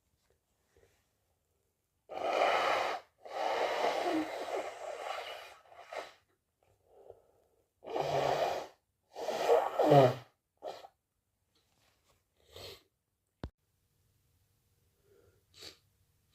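A person with a cold sneezing and blowing their nose: four loud bursts in two pairs, the longest about two and a half seconds, with the loudest near the middle. A few faint sniffs follow.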